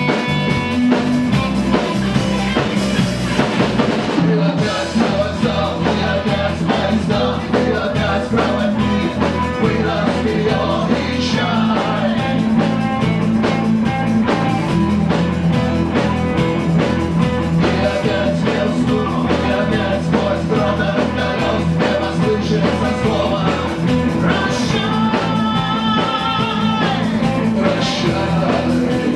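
Rock band playing live, with electric guitar and a drum kit keeping a steady beat.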